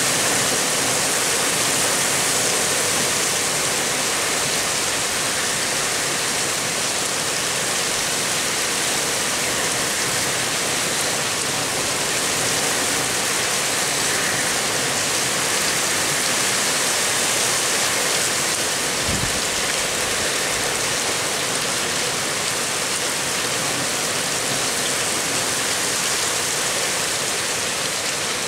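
Heavy downpour: dense, steady rain hiss. A brief low thump about two-thirds of the way through.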